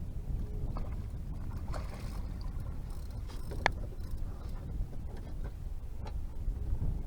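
Steady low rumble of wind and water around a small fishing boat, with a few light clicks and knocks, the sharpest about three and a half seconds in.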